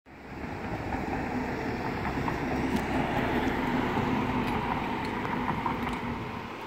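A truck driving past on the street, its engine and tyres a steady drone with a low rumble that fades away near the end.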